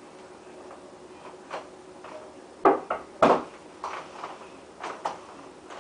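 A few irregular knocks and clunks, the loudest about two and a half and three and a quarter seconds in, with smaller ones after, over a faint steady hum.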